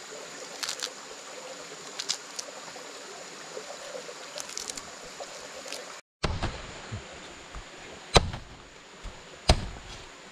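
Steady rushing of flowing water with a faint high insect-like whine, cut off abruptly about six seconds in; afterwards two sharp knocks, a little over a second apart.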